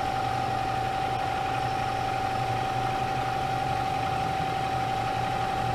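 Bridgeport EZ Trak DX II mill's Series 1 variable-speed head with its spindle running in the high speed range: a steady whine over a low hum. It sounds good, the sign of a healthy, quiet head.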